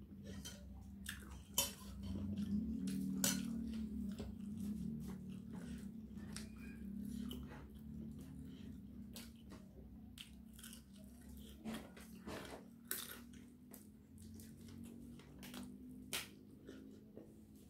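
Close-up chewing and biting of fried chicken and fried tofu, with many short wet mouth clicks and smacks, over a steady low hum.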